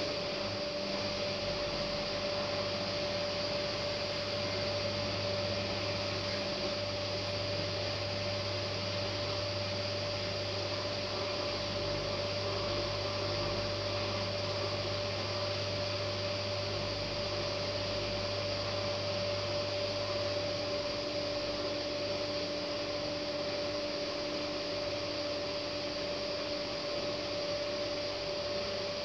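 Hotpoint front-loading washing machine running between the end of the wash and the first rinse: a steady mechanical hum with a low drone that stops about two-thirds of the way through.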